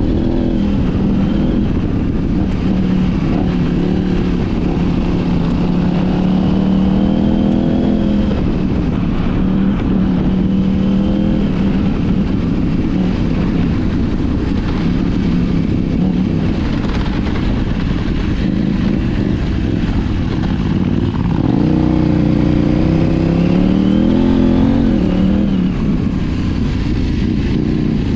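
KTM 790 Adventure R's parallel-twin engine on the move, through an Arrow titanium slip-on exhaust and de-cat mid-pipe. It holds steady revs at first, then rises and falls with throttle changes and shifts in the last third. A constant rushing noise of wind and tyres on dirt runs underneath.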